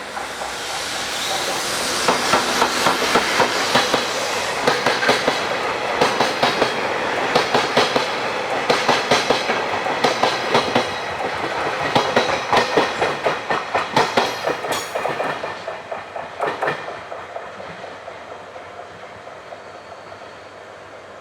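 Train rolling past, its wheels clicking over rail joints in a steady clickety-clack of grouped beats. It builds over the first couple of seconds and fades away in the last few seconds as the train moves off.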